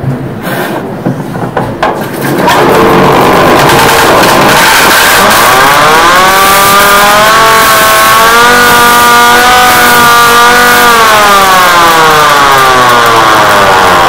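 Emergency-alert-style alarm: crackling clicks, then a loud, harsh, distorted siren tone. It winds up in pitch, holds for several seconds, and winds back down near the end.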